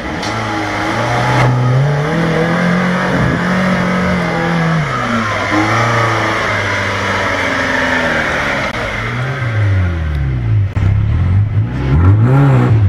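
Suzuki Samurai 4x4 engine revving under load off-road. It is held high for a few seconds, then blipped up and down several times in quick succession near the end.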